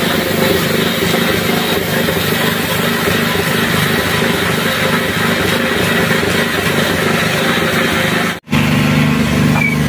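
A motor running steadily, with a dense mechanical hum. It drops out for an instant near the end and comes back as a steadier, deeper hum.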